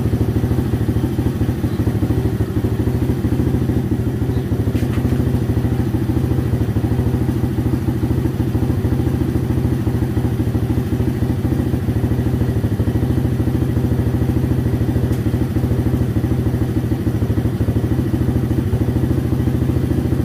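ATV engine running steadily, without revving.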